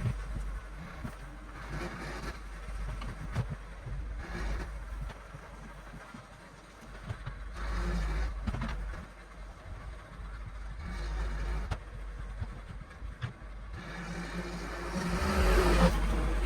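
John Deere backhoe's engine running as it smooths a dirt trail, its level rising and falling with the work, with scattered knocks and clunks. It grows louder about fifteen seconds in.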